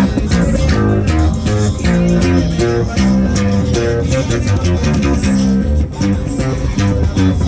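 Live music from an acoustic bass guitar, amplified through a PA speaker: plucked low notes in a steady, continuous rhythm.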